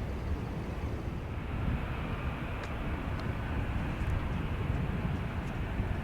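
Steady low rumble of jet aircraft engines, a noisy roar with no clear pitch, heard without any speech.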